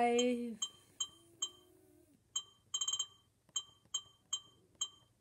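Sony Handycam HDR-CX405 camcorder's operation beeps: about a dozen short, identical electronic blips, one for each press as the minute setting is stepped up, with a quick run of them about three seconds in. A held vocal 'uhh' is loudest at the very start.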